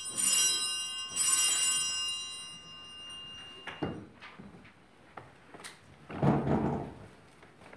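Altar bell struck twice, the second strike about a second after the first, each with a bright high ringing that fades out over the next couple of seconds. Later come a couple of light knocks, then a louder rustling thump near the end as people rise from wooden pews.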